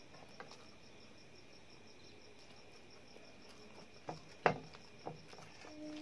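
Fingers working rice on a steel plate, with a few quick knocks and scrapes about four to five seconds in, the loudest a sharp clink, over a faint, steady, high, evenly pulsing chirr. A short low hum comes near the end.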